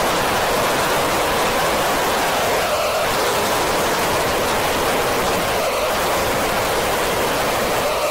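Steady wash of processed, synthesized noise forming an unchanging drone, brightest in the middle range and much like the hiss of rain or a waterfall, with no tune or beat.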